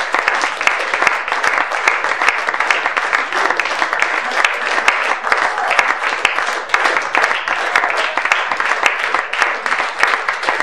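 Audience applauding steadily: a dense, unbroken patter of many hands clapping.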